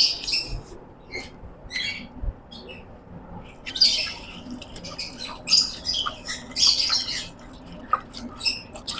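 Caged birds squawking and chirping in short, high-pitched calls, busiest from about four to seven seconds in.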